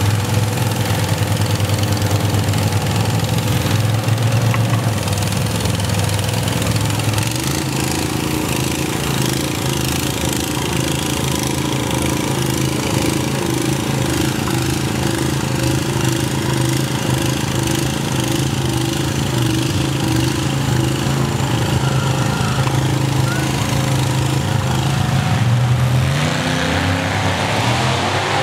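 Monster lawn mower's engine running steadily as it wades through a pond, with water splashing around its big tyres; the engine note shifts about seven seconds in and again near the end.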